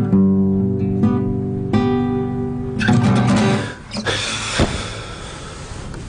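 Acoustic guitar played, chords picked one after another, stopping about four seconds in. Then rustling with a single thump as the guitar is laid down on the bed.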